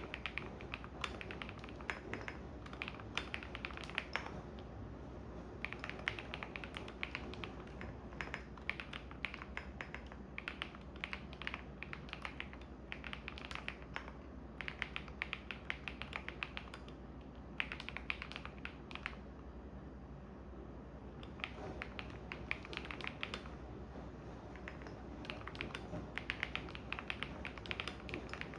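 Typing on a computer keyboard in bursts of rapid key clicks with short pauses, over the steady low hum of a washing machine running.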